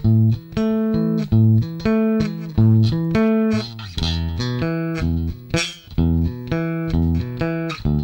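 Ernie Ball Music Man StingRay 4 electric bass played through a Markbass Little Mark Tube 800 amplifier: a riff of separate plucked notes, a few to the second. The preamp is set to its all solid-state side, which gives a very cold tone.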